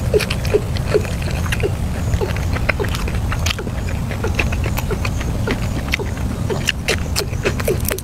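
Close-miked chewing of food, with wet mouth smacks and crunchy clicks in a steady rhythm of about two chews a second.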